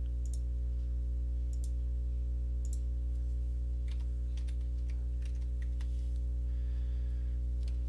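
Scattered soft computer mouse clicks and a few keyboard key presses as a dimension value is entered, over a steady low hum.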